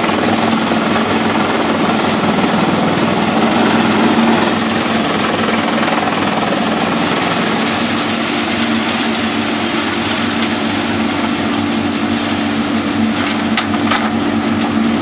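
Pezzolato PTH 1000/1000 truck-mounted drum chipper running steadily under load, chipping scrap timber and boards with a dense, loud noise over a steady engine hum. A couple of sharp cracks come near the end.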